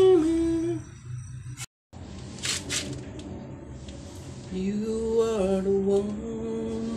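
A singing voice holding long, slightly wavering notes, as in a song playing in the background, cut off briefly by a dropout. A short rasping noise comes about two and a half seconds in.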